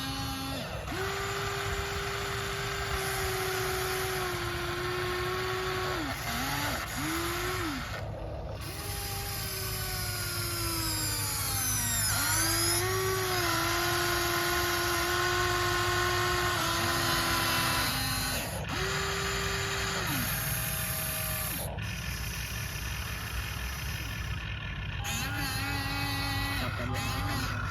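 Electric motors of a Huina 1593 radio-controlled toy excavator whining as its functions run. The whine starts and stops over and over, its pitch stepping between levels, with long downward slides near the middle.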